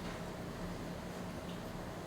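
Quiet room tone: a steady faint hiss with a low hum, and no keystrokes.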